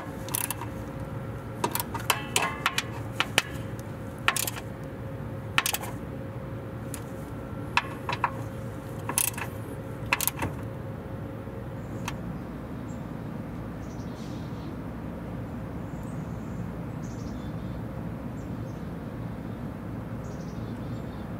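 Metal clicks and knocks of a ratchet wrench and socket working the hood latch bolts, about one a second with a quicker run of clicks about two seconds in. After about twelve seconds the clicking stops, leaving a steady outdoor background with faint high chirps.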